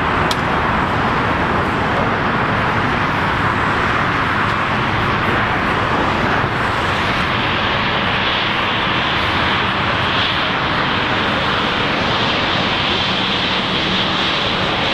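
Embraer E190 regional jet's twin GE CF34 turbofan engines at taxi thrust: a steady jet roar, with a high turbine whine growing clearer from about halfway as the aircraft rolls past.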